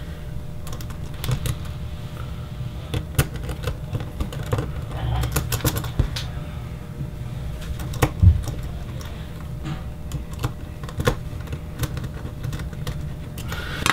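Irregular light clicks and taps of small machine screws, a hex driver and aluminium bracket parts being handled and fitted on a tabletop, over a steady low hum.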